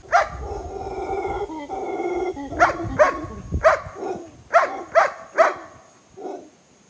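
A dog barking up at monkeys in the trees: a drawn-out call to begin with, then about seven short, sharp barks.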